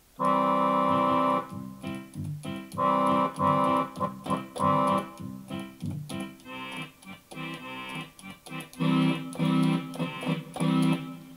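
Roland FR-1x digital accordion playing user program 1A: held chords broken by short runs of notes, with an organ-like tone. The program is not sounding as intended, as its voices had not been set.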